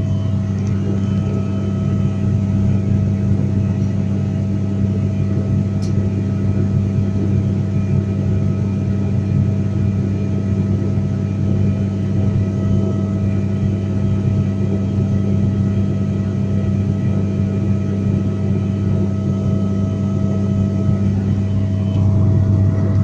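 Steady cabin drone of a turboprop airliner in cruise: the engines and propellers give a deep, even hum with a steady whine above it, heard from inside the cabin.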